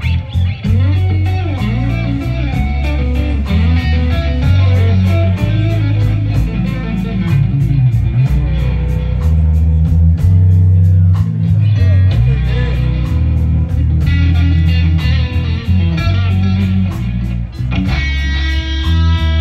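Live electric blues band playing a slow blues: a lead electric guitar solos with bent notes over bass guitar and drums. Near the end the guitar holds one long ringing note.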